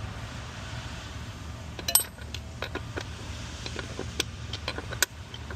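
Hand tools and fasteners clicking and clinking on metal while intake connections are tightened, sharp irregular clicks about two a second from about two seconds in, the first the loudest, over a steady low hum.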